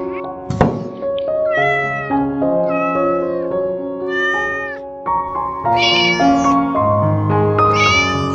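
A cat meows about five times, in separate arching calls, over steady background music. A short sharp knock comes about half a second in.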